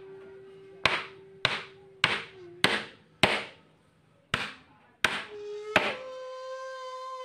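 Eight sharp knocks, about one every 0.6 s with a short gap after the fifth, as a hardwood post is driven down into a V-notched joint in a wooden beam. Background music comes in near the end with a long held note.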